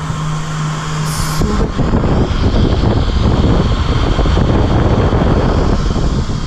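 Air rushing out of a fan-driven roof exhaust vent on a motorhome, buffeting the microphone held up to it: a loud, uneven low rumble from about a second and a half in until near the end, after a steady low hum that stops just before it.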